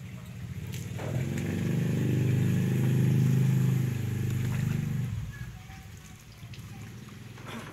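An engine running close by, growing louder to its peak about three seconds in and dying away quickly a little after five seconds, typical of a motorbike going past.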